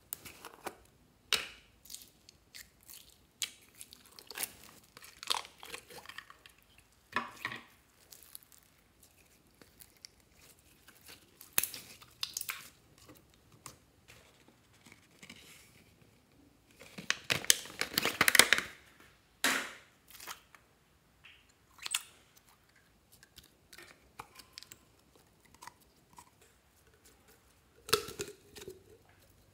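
Store-bought slime being handled by hand: plastic tubs opened and emptied, and clear slime full of foam beads pulled out into a plastic basin. It makes scattered short clicks and rustles, with a dense run of clicking about 17 to 19 seconds in.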